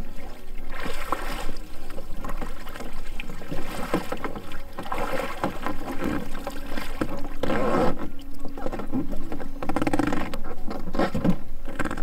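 Water splashing and sloshing around a swamped foldable plastic kayak as a person climbs aboard from the water over its end, with irregular knocks and rubbing from the hull.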